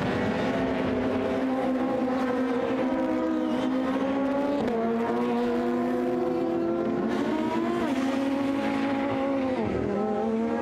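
Several touring car engines running hard at high revs, overlapping. Their pitch dips sharply a few times.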